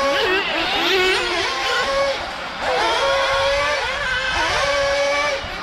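Several racing engines running hard together, their high-pitched notes rising, falling and holding steady in turn as they accelerate and lift.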